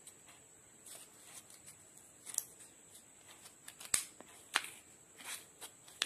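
Thin green PET bottle plastic crackling and crinkling as it is folded and pressed between the fingers: scattered sharp crackles, the loudest about four seconds in.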